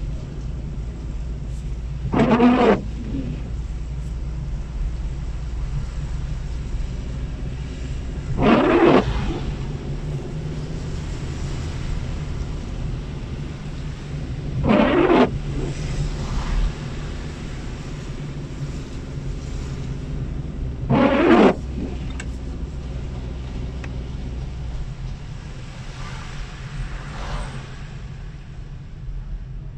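Heard from inside a car driving on a wet street: a steady low drone of engine and tyres. An intermittent windshield wiper sweeps across the glass four times, about every six seconds.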